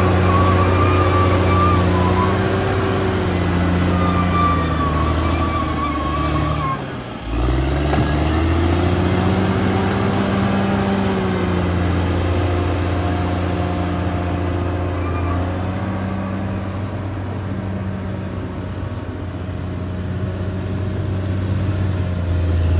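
Caterpillar D6R XL bulldozer's diesel engine running steadily, with its pitch and level dipping sharply about seven seconds in, as if briefly lugged, then recovering. A thin high whine comes and goes in the first few seconds.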